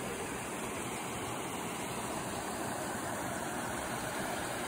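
A shallow river rushing steadily over rocks, with water pouring through a small cascade between limestone boulders.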